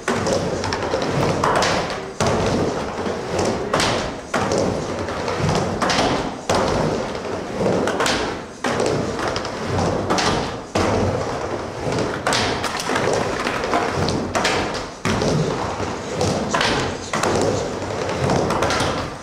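Skateboard rolling back and forth on a wooden mini ramp: a continuous wheel rumble broken by sharp knocks of the board and trucks hitting the ramp and coping, roughly every two seconds.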